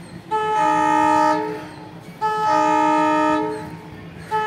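Indian Railways locomotive air horn, heard from an approaching train. It gives two long blasts, each a chord of several steady notes, and a third blast begins near the end.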